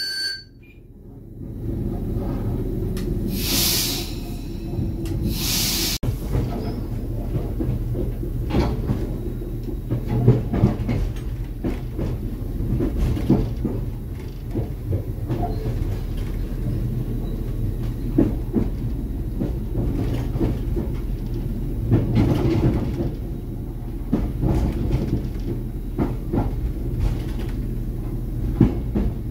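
Inside the cab of an RA2 diesel train under way: a steady low running rumble with irregular clicks and knocks from the wheels crossing switches and rail joints. Two short bursts of air hiss come about three and five seconds in.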